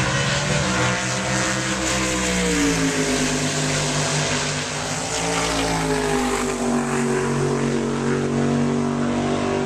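Drag car's engine running loud and steady, its pitch sliding down twice, a couple of seconds in and again about seven seconds in.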